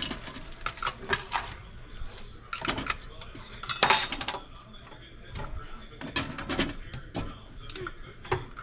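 Filled glass canning jars clinking and knocking against each other and the sides of an aluminum pressure canner as they are set in one by one; irregular clinks, the loudest about four seconds in.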